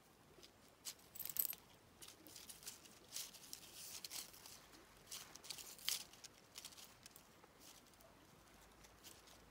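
Faint, scattered crackling and rustling of dry fallen leaves being disturbed, busiest in the first six seconds and then dying down.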